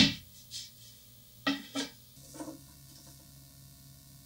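Douglas fir laminated boards knocking against a wooden workbench as a stack of them is handled. One sharp knock at the start, a lighter one just after, two quick knocks about a second and a half in, then a fainter one.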